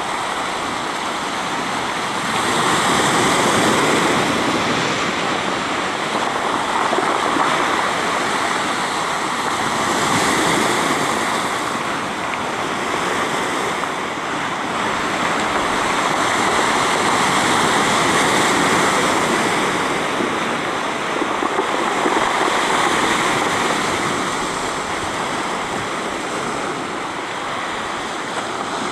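Surf washing in over a pebble beach, a steady rush of water that swells and eases every several seconds.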